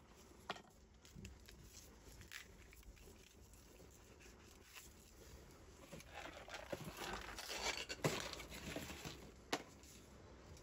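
Faint scraping and a few sharp clicks as the outer sheath is worked off the end of an SWA armoured cable and the loose steel armour wires are handled, with a longer stretch of rustling scraping about six to nine seconds in.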